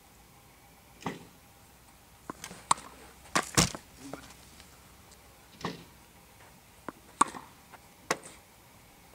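Tennis ball and racket impacts: an irregular series of sharp knocks and thuds as the ball is struck and bounces, the loudest about three and a half seconds in.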